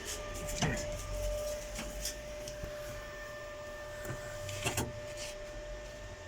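A steady electrical hum, with a few knocks and taps from the welding gear being handled against the car floor: the welder is switched on but strikes no arc.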